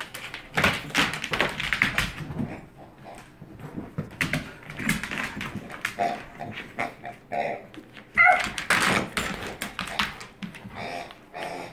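A Bernese mountain dog's claws clicking and scrabbling irregularly on a hardwood floor as it noses and paws at a toy pig, with a short squeak about eight seconds in.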